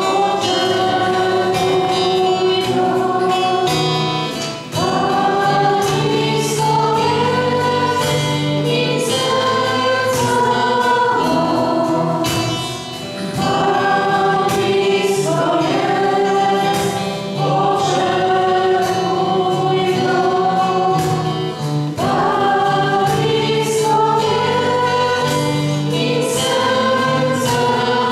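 A choir singing a Christian worship song in long held phrases.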